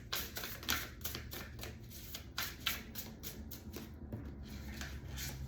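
A tarot deck being shuffled by hand: a quick run of soft card flicks and slaps, several a second.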